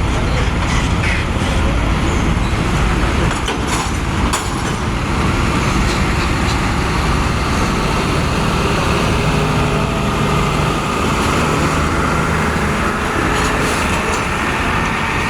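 Heavy engines and machinery running steadily during cargo unloading, with a few short knocks about four seconds in.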